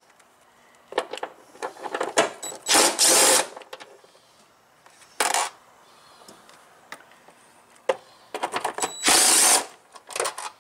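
DeWalt cordless impact driver with a socket running in short bursts to spin out the air-filter box bolts, about three bursts under a second each plus a brief one near the end. Clicks and rattles of the socket and loose parts come between the bursts.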